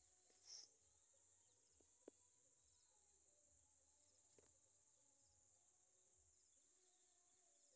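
Near silence outdoors: faint steady insect chirring, with one short high chirp about half a second in and a couple of faint clicks.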